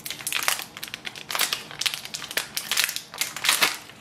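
Crinkling of a thin plastic blister pouch as hands handle it and peel it off an ink cartridge, in a run of irregular short crackles.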